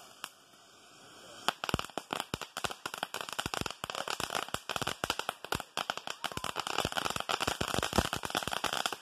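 Box-type ground firework hissing softly, then from about a second and a half in a fast, dense run of crackling pops that keeps going.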